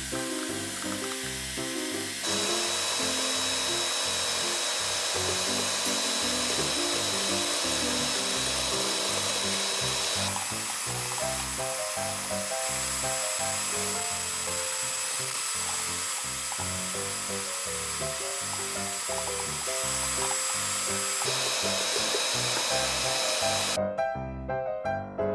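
Electric hand mixer running steadily, its twin beaters whisking eggs in a stainless steel bowl, the motor's whine changing pitch a few times and cutting off suddenly near the end. Background music plays underneath.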